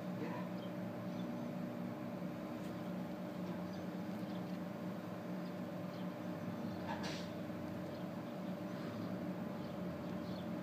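Steady low hum, with a few faint short squeaks over it, the clearest about seven seconds in.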